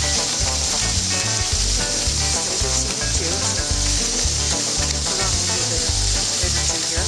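Dog sled runners hissing steadily as they slide over packed snow, with wind buffeting the microphone in low, choppy rumbles.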